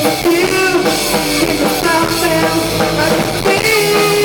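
Loud rock music with drums and a melody line.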